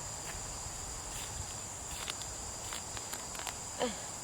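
Steady high-pitched insect chorus outdoors, with a few faint clicks and a short falling vocal sound near the end.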